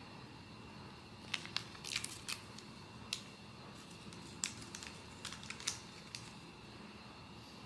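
Blind-box packaging being handled: a scattering of short, sharp plastic and cardboard clicks and crinkles that come in small clusters, with pauses between them.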